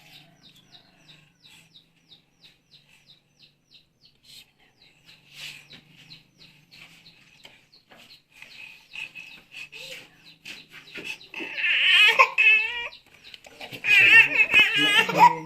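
A baby fussing and then crying in loud, high, wavering wails during the last four seconds. Before that there is only a faint, quick, even ticking, about four or five ticks a second.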